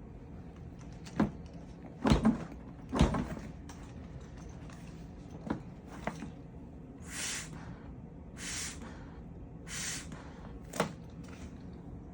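Morse code signal sent with knocks and short puffs of air: irregular sharp knocks, then three brief hisses about a second and a half apart, then one more knock near the end.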